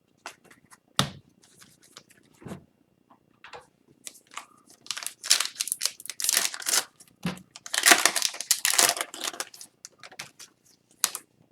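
Trading card pack wrapper being torn open and crinkled by hand, with a few light clicks of card handling early on. There are two longer ripping spells around the middle.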